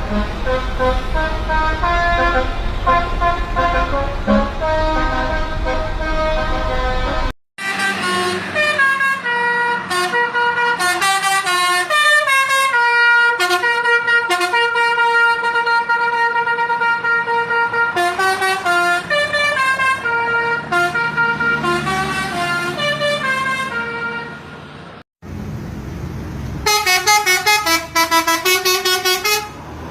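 Telolet basuri musical horn of the Eka Persada bus "Ken Arok" playing tunes in stepped, multi-tone notes, over a low engine rumble in the first few seconds. The sound cuts twice, about seven and twenty-five seconds in, to new horn tunes; the last is a fast repeating run of notes.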